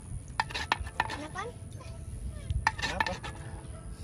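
A long-handled metal spoon scraping and clinking against a bowl and a plate as a thick sauce is stirred and scooped out. There are a few sharp clinks, about half a second in and again near three seconds in.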